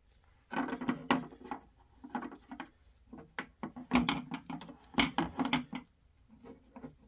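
Folding knives being handled and opened: a rapid, irregular series of sharp clicks and knocks of metal and handle scales, with short bits of rubbing.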